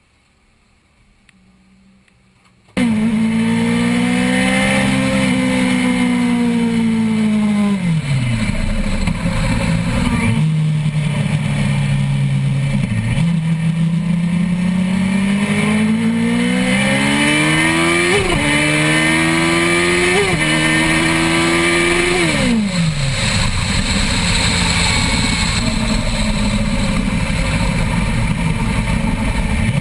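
Quiet for the first few seconds, then suddenly a Suzuki GSX-R 1000's inline-four engine at speed on a race track, heard from onboard with wind rushing over the camera. The revs climb and fall through corners, with three quick upshifts in a row past the middle, after which the revs drop away as the bike slows.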